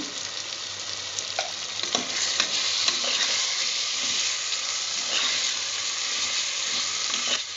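Mutton masala of onion, tomato and chilli sizzling in oil and ghee in a pressure cooker pot while it is stirred with a steel spoon, with a steady frying hiss and a few clicks and scrapes of the spoon against the pot.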